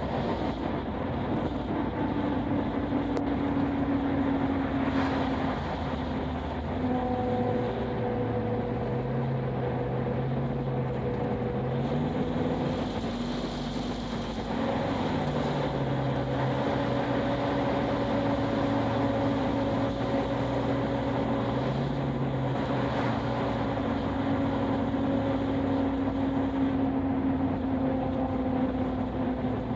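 Car engine running under way, its pitch rising and falling several times with the throttle, over steady road and wind noise, heard from inside the cabin.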